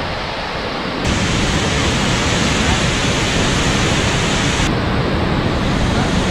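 Waterfall in heavy monsoon flow, a steady rushing roar of falling water that gets louder about a second in.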